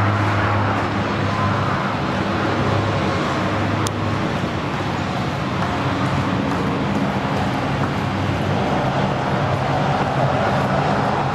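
Bombardier Dash 8-Q402 turboprop at take-off power on its take-off roll: a steady engine and propeller drone with a low hum and its overtones.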